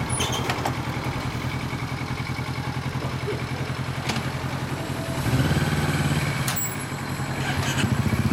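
Kawasaki Ninja 400 parallel-twin with a Sansei Racing aftermarket muffler, idling with an even, pulsing exhaust note. The engine picks up briefly about five seconds in, then settles back, with a few light clicks.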